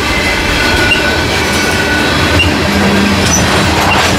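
Canadian National grain train's freight cars rolling past, steady wheel-on-rail rumble with a thin, steady high wheel squeal and faint regular ticks.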